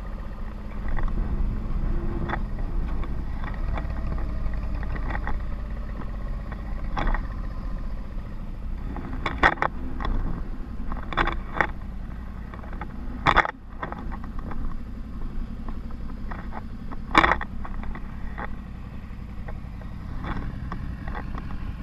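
Motorcycle engine running at low speed, heard through a helmet camera with wind on the microphone. Several sharp clicks cut through it, the loudest about 13 and 17 seconds in.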